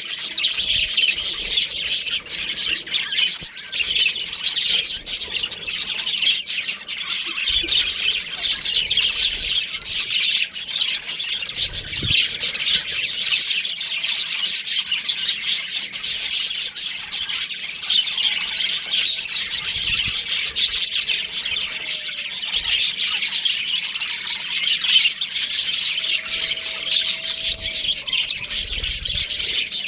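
A flock of budgerigars chattering and chirping without pause, many calls overlapping.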